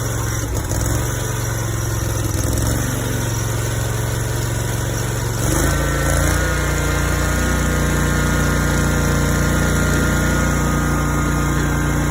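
The 36-inch lawn mower's gasoline engine running after its fuel line was cleared by blowing air through it to the fuel filter. It idles first, then about halfway through picks up to a higher, steady speed.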